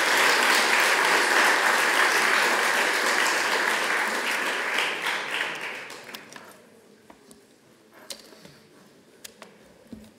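Audience applauding, many hands clapping together, dying away about six seconds in. A few faint clicks and knocks follow.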